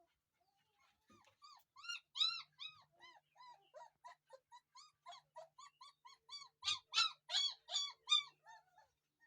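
German Shepherd puppy crying: a quick run of short, high whimpering yelps, each rising and then falling in pitch, about four a second. They start about a second in and are loudest around two seconds in and again in the last couple of seconds.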